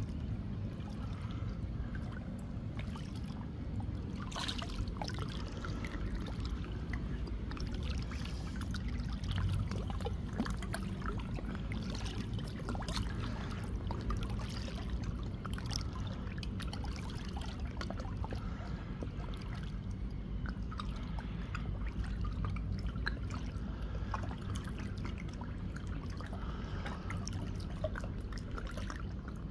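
Swimming pool water trickling and lapping, with many small splashes and a steady low rumble underneath.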